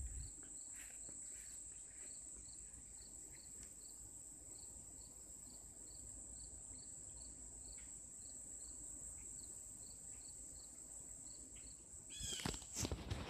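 Summer insects: a steady high-pitched trill with a cricket-like chirp repeating about three times a second. A burst of louder, sharper sounds comes about a second before the end.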